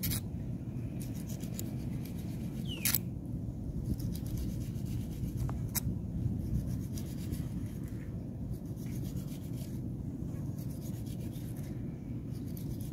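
Kitchen knife slicing fish fillet away from its skin against a flat stone, making repeated rasping, scraping strokes, with a couple of sharp clicks of the blade on the rock.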